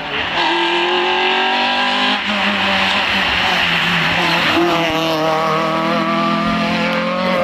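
Citroën C2 rally car's engine at high revs as the car approaches and passes on a wet tarmac stage. The note climbs steadily, breaks off briefly about two seconds in, then climbs hard again from about halfway.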